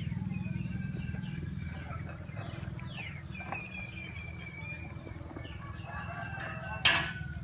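A litter of puppies eating rice together from one plate, a steady busy sound of feeding, over many short falling chirps and calls. One louder, sharp cry comes near the end.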